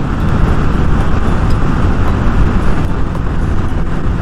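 Steady wind rush and road noise of a motorcycle at high speed, heard through a microphone inside the rider's helmet.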